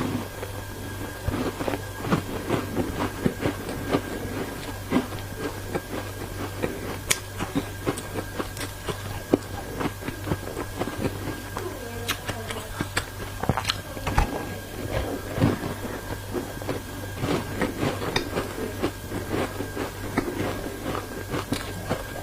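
Ice being bitten and chewed close to the microphone: irregular crunches and cracks, over a steady low hum and a faint steady high tone.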